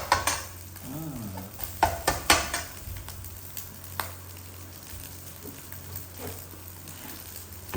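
Food sizzling in hot oil in a pan, with a utensil scraping and clicking against the pan in short runs, most strongly about two seconds in.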